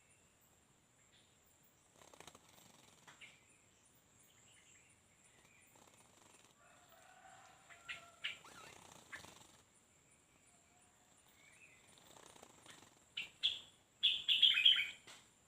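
Small birds fluttering and chirping: several short rustles of wings and a few sharp high chirps, with the loudest burst of chirps near the end.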